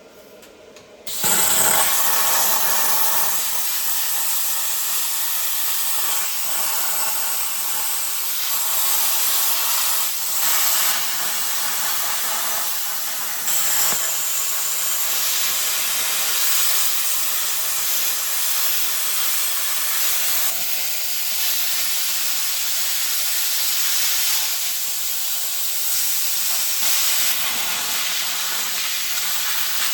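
Plasma cutter hissing steadily as it cuts through a lawn mower's frame, starting abruptly about a second in.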